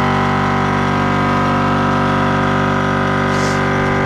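12-volt Slime air compressor running steadily, a constant motor hum, with a brief hiss about three and a half seconds in.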